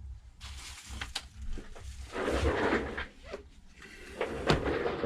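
Handling noises from working on a tablet on a workbench: light clicks and rustling, a denser scraping patch about two seconds in, and a sharp tap about four and a half seconds in, over a steady low hum.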